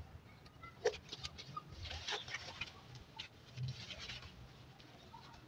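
Faint clicks and plastic crinkling as a hand-press impulse heat sealer is closed on a water-filled polythene tube to seal and cut off a 250 ml water pouch, and the finished pouch is lifted out. Faint bird chirps sound in the background.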